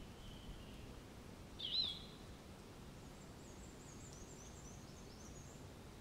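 Birds calling over a faint steady outdoor background: one loud, short chirp a little under two seconds in, then a quick run of about ten very high, short falling notes for a couple of seconds.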